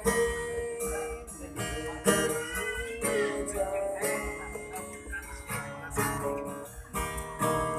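Acoustic guitar playing an instrumental passage between sung lines, plucked and strummed notes.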